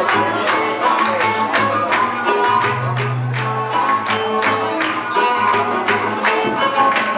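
Forró played live by a small band: rabecas (Brazilian folk fiddles) carry the tune over a steady zabumba drum beat, with a bass holding low notes, one of them long, near the middle.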